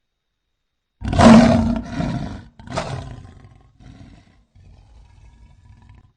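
Big-cat roar sound effect billed as an American lion: silence, then a loud roar about a second in, a second shorter roar right after, then fainter low rumbling that stops abruptly near the end.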